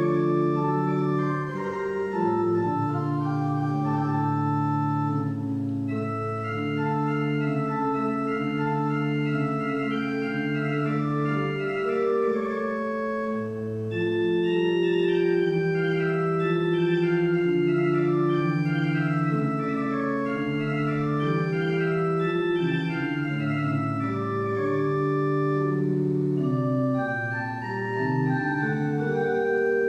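Church organ playing a slow piece of held, sustained chords that change every second or two.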